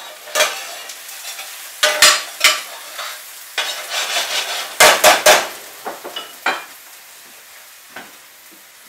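Food sizzling in a large stainless steel frying pan while it is stirred with a spoon, the spoon scraping and clanking against the pan, loudest about five seconds in. The stirring stops about six seconds in and the steady sizzle goes on.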